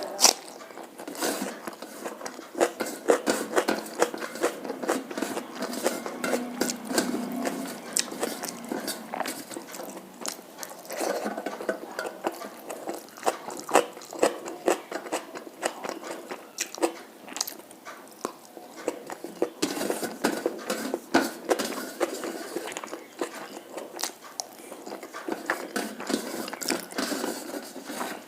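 A person chewing and eating, with continuous wet mouth sounds and many short sharp clicks.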